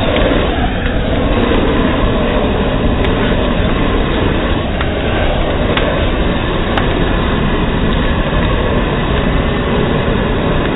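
Long-wand propane torch burning at full flame: a steady, loud rushing noise, with a few sharp cracks from twigs catching fire in its flame.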